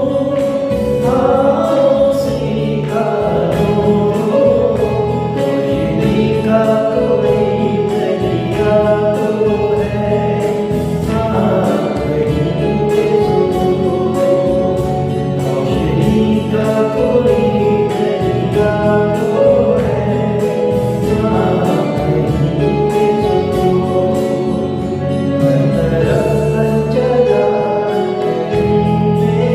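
A group of voices singing a song together with instrumental accompaniment and a steady beat.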